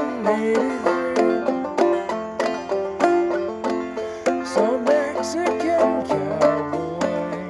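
Clawhammer banjo in G modal tuning with the fifth string dropped to F, played in a steady old-time rhythm, with a man singing over it.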